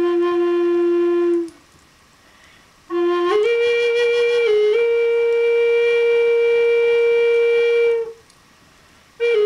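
Wooden end-blown flute played solo in long held notes. The notes come in slow phrases, and each phrase stops for a short silent gap, once about a second and a half in and again near the end.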